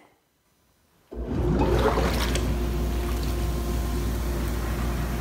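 Jetted bathtub's jets switching on about a second in: the pump starts with a steady low hum and the jets churn and froth the bathwater with a steady rushing sound.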